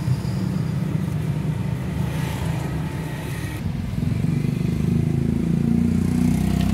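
A motorcycle engine running close by, a low steady drone that grows louder about four seconds in.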